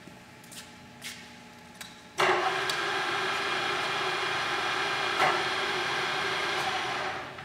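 A few light clicks, then the milling machine's 10-horsepower spindle motor and geared head start suddenly about two seconds in and run at a steady speed with a strong mechanical hum. Near the end it winds down quickly.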